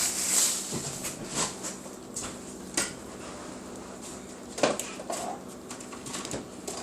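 Kitchen dishes and utensils clinking and knocking: a scatter of light clicks with a few louder knocks, after a short hiss at the start.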